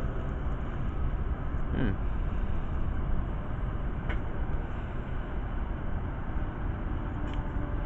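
Steady low outdoor rumble, with a brief faint rising tone about two seconds in.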